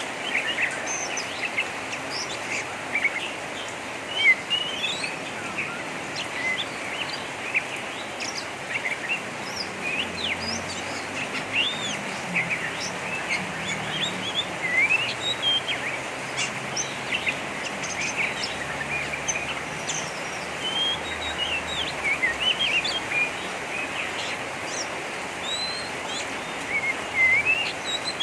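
Oriental magpie-robin (kacer) singing a harsh, rapid 'ngeriwik' twitter: a continuous run of short, quick high chirps and slurred whistles over a steady background hiss.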